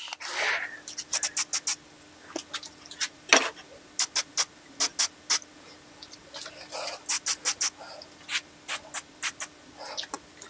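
Hand pump spray bottle of superglue (CA) accelerator being squirted in many short quick sprays, in little clusters, with one longer spray at the start. A faint steady hum runs underneath.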